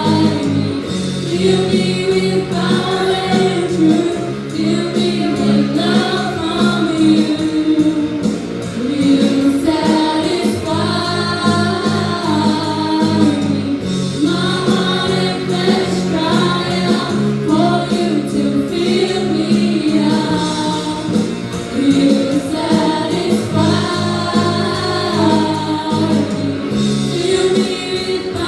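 A junior praise team of young singers singing a contemporary worship song together, with band accompaniment of bass and drums.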